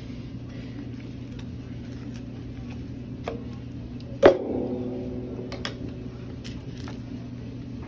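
Knife and utensils knocking against a metal roasting pan and its rack as a roast chicken is cut up: a few light clicks, and one sharp clank about four seconds in that leaves the pan ringing briefly. A steady low hum runs underneath.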